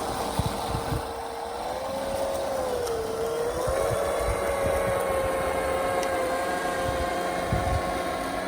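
Motor whine of a 3D-printed RC model snowblower on a tracked snowcat running in snow. The whine rises in pitch about two seconds in, dips briefly near three seconds and climbs again, with a few low thumps.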